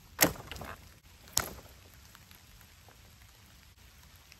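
Dry branches crackling and snapping twice in the first second and a half, then a faint patter of water drops.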